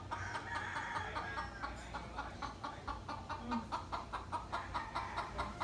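Chickens clucking in a rapid, even series of about four clucks a second, with one longer drawn-out call near the start.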